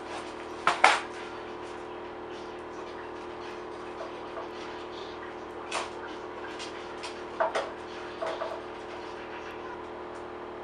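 A few short, sharp knocks and clatters of hands working a board and body sill on a workbench, the loudest about a second in, over a steady hum.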